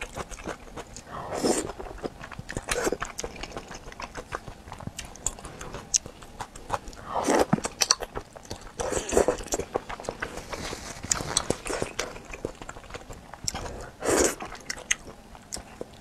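Close-miked mouth sounds of a person eating wide glass noodles from a spicy mini hot pot: about five loud, drawn-out slurps, with chewing and wet mouth clicks between them.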